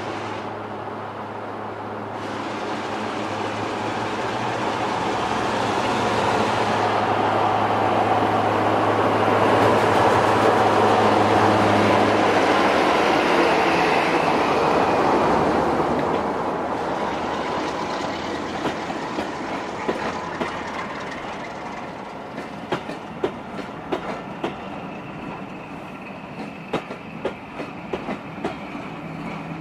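Class 45 'Peak' diesel locomotive's Sulzer 12LDA28-B engine working under power as it runs past, building to its loudest about halfway through and then fading. In the second half the carriage wheels click over the rail joints as the coaches roll by.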